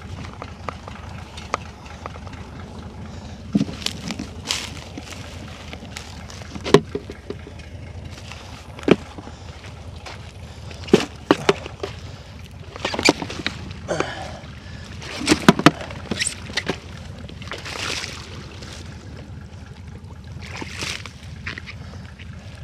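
Dry marsh reeds crackling and snapping and wet mud squelching as they are handled by hand, in irregular sharp cracks and short scuffling clusters over a steady low rumble.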